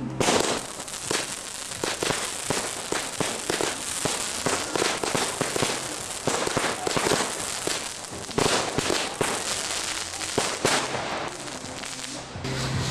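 Daytime fireworks going off in a rapid barrage: many sharp bangs and crackles in quick succession, thinning out near the end.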